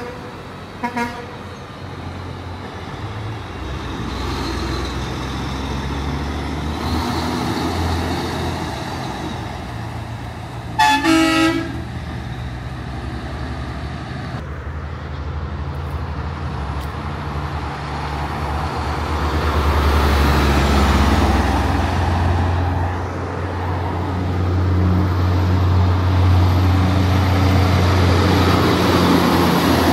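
Semi-trailer trucks passing on a highway with a steady deep diesel rumble and tyre noise that swells in the second half, and a truck horn sounding: a short toot about a second in and a louder blast of about a second around the middle.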